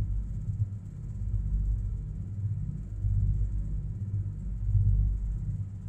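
Low, steady rumble of a Soviet-built passenger hydrofoil under way, its diesel engines and hull heard from inside the cabin, swelling and easing every second or so.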